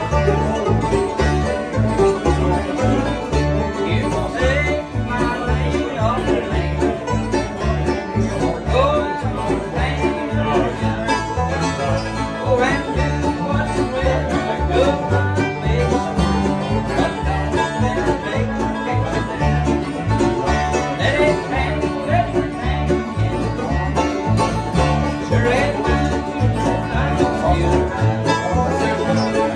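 Acoustic bluegrass band playing together: picked banjo, mandolin and guitars over an upright bass, whose low notes keep a steady beat.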